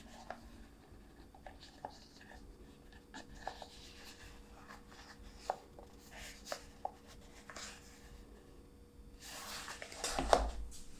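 Hands handling a stitched leather sunglasses sleeve: soft rubbing of leather against skin with scattered small clicks. Near the end a louder brush and knock as the sleeve is set down on the cutting mat.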